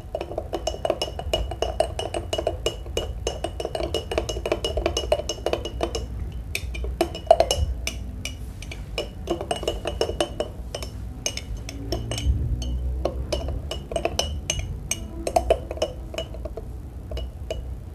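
Teaspoon clinking quickly and repeatedly against the inside of a glass mug, stirring chocolate drink powder into a little hot water to dissolve it.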